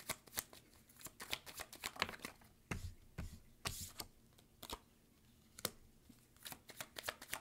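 A deck of cards being shuffled by hand: a fast run of faint card clicks over the first couple of seconds that thins to scattered clicks and taps, with a card laid down on the wooden table.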